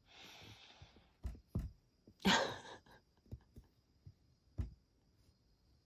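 Breathy exhales close to the microphone: a soft one at the start and a louder, longer one a little past two seconds in, like a sigh, with a few soft low bumps of handling in between.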